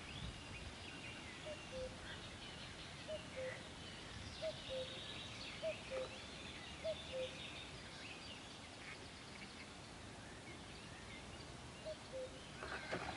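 A bird calling in two-note phrases, the second note lower, repeated about every second and a quarter with a pause before a last pair near the end, over faint songbird chatter.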